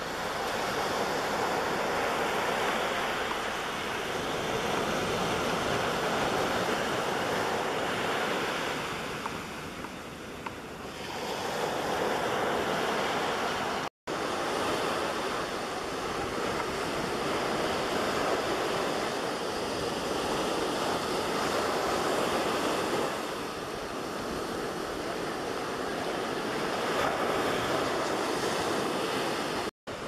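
Ocean surf breaking and washing up the beach, a continuous rush of waves that swells and eases. The sound drops out for an instant twice.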